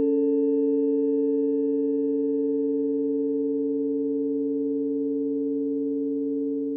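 Sound-healing frequency tones: several pure, steady electronic tones sounding together as a held chord, with no attack or decay, fading slightly.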